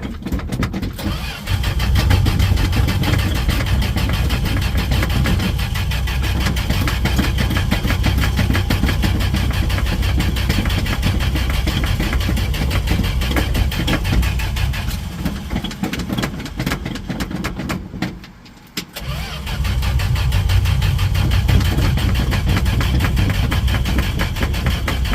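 1968 Dodge D100 pickup's engine cranking over on its starter without catching: a hard start. Two long spells of cranking with a brief break about eighteen seconds in.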